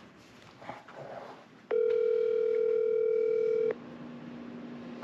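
Phone call ringing out: a single two-second ringback tone through a phone's speaker, starting and stopping abruptly, followed by a quieter low steady tone.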